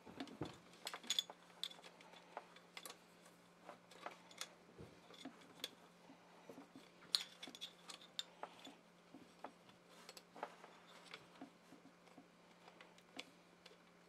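Scattered light clicks and taps of wires, wire nuts and a plastic wiring cover being handled and pressed into a vacuum pump motor's end housing, irregular and faint, over a faint steady low hum.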